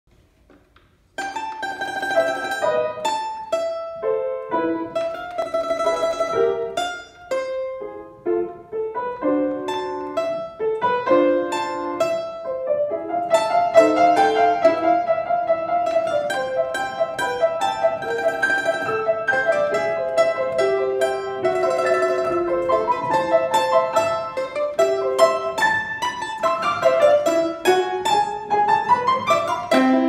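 Domra and piano playing together: quick runs of plucked notes on the domra over a piano accompaniment, the music starting about a second in.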